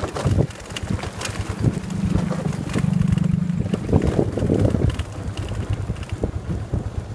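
Motorbike engine running on the move, its note rising a little for a couple of seconds then settling back. Wind buffets the microphone, with occasional knocks from the ride.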